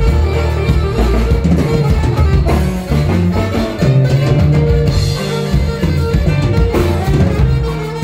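Live norteño band music, with drums and bass guitar to the fore under the melody.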